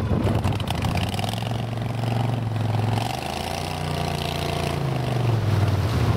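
Boat motor running steadily, its pitch shifting a little in the middle, with a hiss of wind or spray over it.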